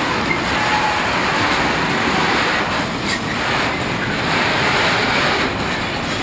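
Container freight train rolling past, a steady noise of wagon wheels running on the rails, with a sharp click about halfway through.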